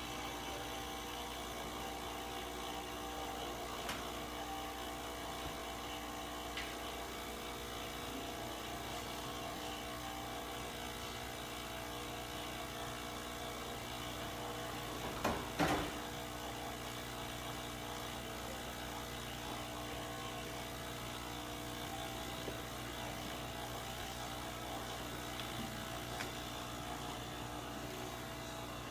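DeLonghi coffee machine running with a steady, even hum, waiting to brew. There is a brief knock about halfway through.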